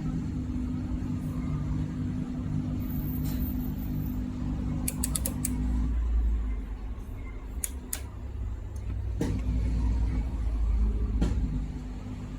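Beko dishwasher running: a steady motor hum that drops out about halfway and comes back near the end, under a deep rumble, with a few sharp clicks.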